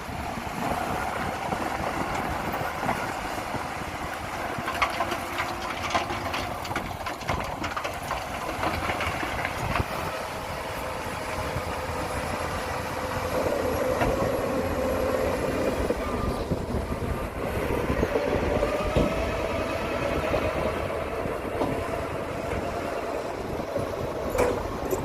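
Shantui crawler bulldozer working: its diesel engine runs steadily under a continuous metallic rattle and clank from its steel tracks.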